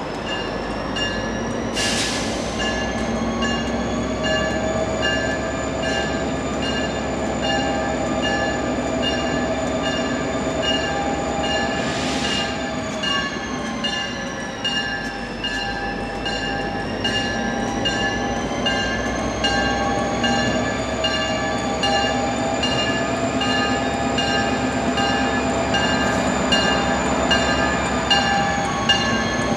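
EMD GP40PH-2 diesel locomotive and its train rolling slowly through a curve, with long high squealing tones that slowly rise and fall over the engine's running rumble. Two short hisses come about 2 and 12 seconds in.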